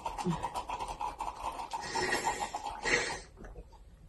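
Slurping through a drinking straw: a rapid, crackly, gurgling suck that stops a little after three seconds in.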